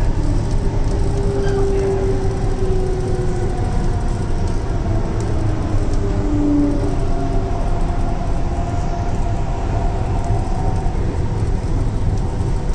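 Hyderabad Metro train running, heard from inside the carriage: a steady rumble with a few faint whining tones that slide in pitch. An oncoming metro train passes on the next track about six seconds in.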